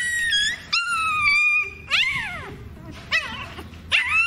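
Young puppy crying out in pain while mango worm larvae are squeezed from its skin: high-pitched held cries, a sharp falling yelp about two seconds in, a couple of brief yelps a second later, and another long cry near the end.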